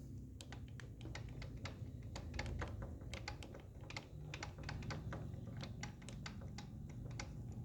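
Honda XR150 engine's piston knocking in its cylinder as the crankshaft is rocked back and forth by hand: a string of faint, irregular clicks, several a second. It is piston slap, from a skirt and rings worn by running without oil.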